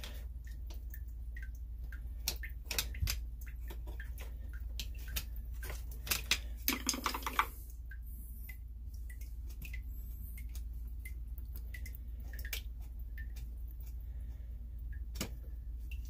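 A flathead screwdriver and fingers working a metal hose clamp loose on a sump pump discharge pipe. The sound is a string of scattered small clicks and scrapes, with a denser burst of clicking about seven seconds in.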